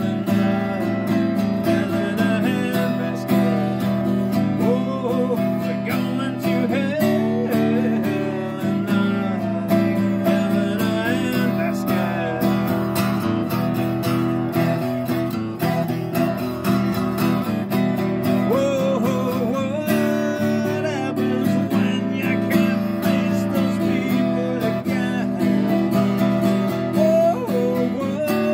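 Acoustic guitar strummed in a steady rhythm, ringing chords played continuously on a cutaway steel-string acoustic.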